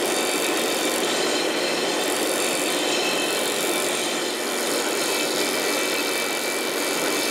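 Stationary disc sander running steadily with a faint high whine as the tapered end of a new wooden chair rail is shaped against the sanding disc.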